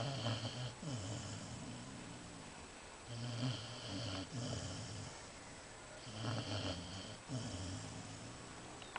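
Golden retriever snoring in deep sleep: three slow snoring breaths about three seconds apart.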